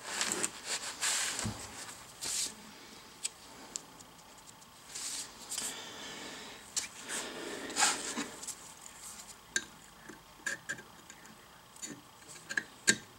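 Short bouts of rubbing and scraping on a cast-iron lathe saddle, broken by light metal clicks and taps, as burrs are worked off its surfaces with a sharpening stone and a steel parallel is drawn across to check for catching. The clicks come more often near the end.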